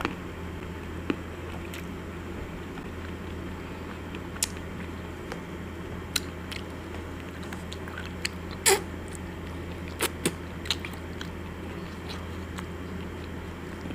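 Close-up mouth sounds of someone licking and eating a chocolate-and-almond-coated ice cream bar: scattered short wet lip smacks and clicks, the loudest a little after the middle. A steady low hum runs underneath.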